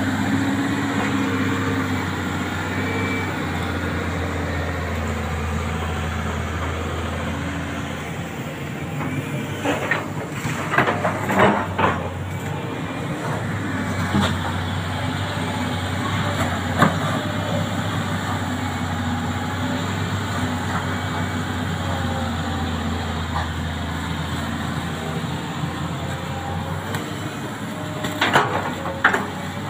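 Sany hydraulic excavator's diesel engine running steadily while it digs mud out of a shallow flooded ditch, with clusters of sharp knocks about ten seconds in and again near the end.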